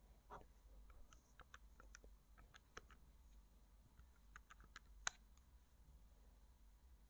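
Faint typing on a computer keyboard: a run of quick key clicks, then a second run ending in one sharper click about five seconds in.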